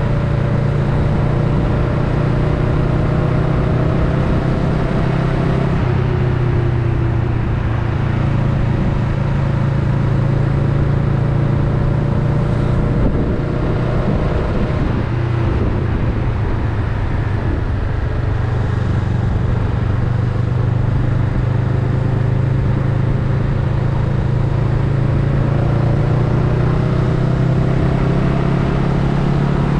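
Honda Rebel 500's parallel-twin engine running while riding, a steady low drone whose pitch drops about six seconds in, sags again around the middle, and climbs slowly through the second half as the bike speeds up and slows.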